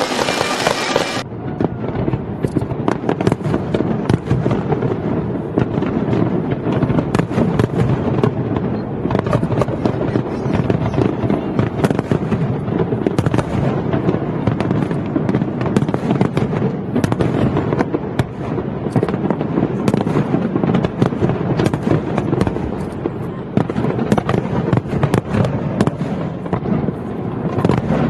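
Fireworks display: a dense, unbroken barrage of crackling and popping bursts, many at once with no pauses. About a second in, the sound turns duller.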